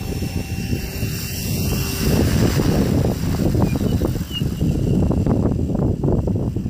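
Radio-controlled model helicopter hovering low, its rotor whirring with a faint steady high whine, under a loud low rush of air on the microphone that grows louder about two seconds in.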